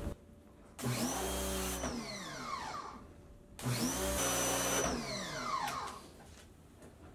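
Pressure washer spraying a freshly boiled skull on concrete in two short bursts, about a second each. Each time the trigger is let go, the motor's whine falls in pitch as it winds down.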